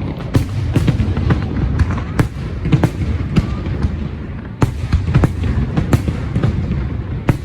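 Aerial fireworks going off in an irregular string of sharp bangs, about two a second, over a continuous low rumble, with a brief lull about four seconds in.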